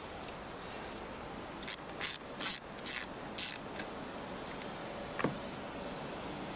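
Hands working at the battery in a car's engine bay: a run of short scraping and rubbing noises about half a second apart, then a single sharp click about five seconds in.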